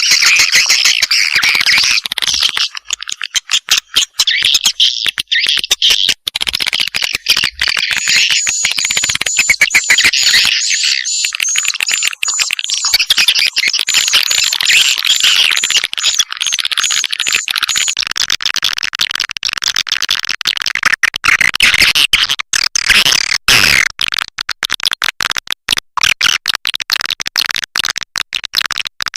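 Recorded swiftlet call track of the kind played to lure swiftlets into a nesting house: dense, fast twittering chirps mixed with rapid clicks. A run of short, evenly repeated high chirps sits over the chatter for several seconds in the middle.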